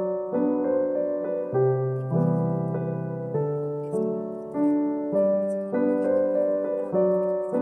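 Solo piano background music: held chords under a simple melody, the notes changing every half second or so.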